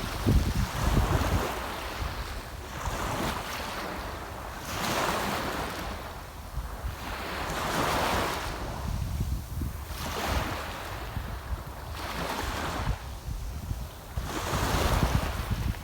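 Sea waves breaking and washing up on the shore, a new surge of surf every two to three seconds. Wind rumbles on the microphone underneath, strongest at the start and near the end.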